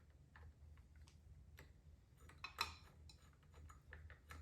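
Faint scattered clicks and ticks of a screw being backed out of a motorcycle handlebar switch housing by hand tool, with one sharper metallic click about two and a half seconds in.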